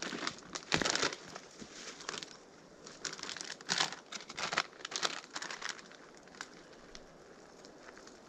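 Dry dead ferns, leaves and twigs crunching and rustling underfoot and against the legs as a person walks and moves about in forest undergrowth, in an irregular run of crackles that thins out over the last couple of seconds.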